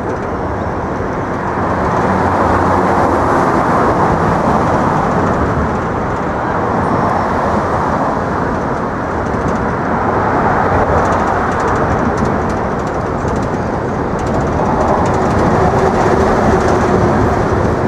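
Subway train running over the Manhattan Bridge: a long, steady, loud rumble of steel wheels on track that swells and eases slightly.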